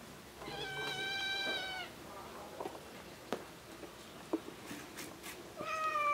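Hungry stray cats meowing: one long, high, steady meow about half a second in, then a shorter meow near the end, with a few faint clicks in between.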